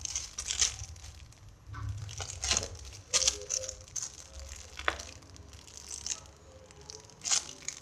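Irregular crinkling and rustling as a homemade squishy is squeezed and handled, with a few sharper crackles here and there.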